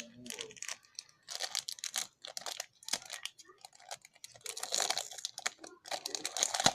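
Slime being squished and kneaded by hand: irregular runs of small, wet crackling clicks.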